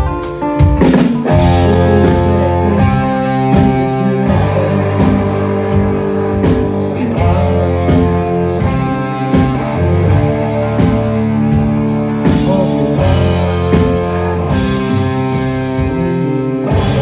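Live country-rock band playing an instrumental passage: electric guitar lead over chords, bass and drum kit.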